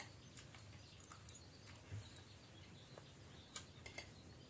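Near silence: quiet room tone with a few faint sharp clicks and faint bird chirps.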